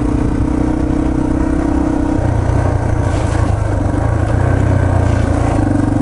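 Yamaha TT-R230 dirt bike's single-cylinder four-stroke engine running steadily while the bike rides along. Its note drops lower about two seconds in and picks back up near the end.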